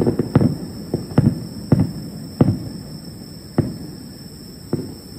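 Aerial firework shells bursting: about eight deep booms at uneven intervals, each with a short rumbling tail, spacing out and growing fainter toward the end.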